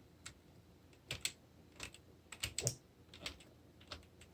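Scattered light clicks and taps, irregularly spaced, from small plastic doll accessories and packaging being handled.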